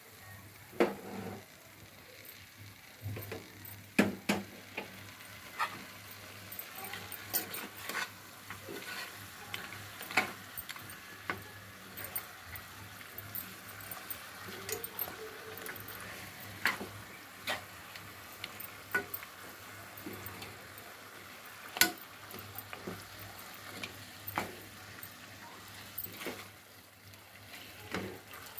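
A spatula stirring mutton chops in thick curry masala inside an aluminium pressure cooker. It knocks and scrapes against the pot at irregular intervals, about one knock a second, over a faint sizzle of the frying masala.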